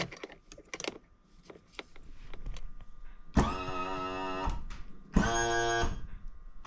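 A few light clicks near the start, then a small electric motor on the boat runs twice with a steady hum: first for about a second, then again about half a second later until the end.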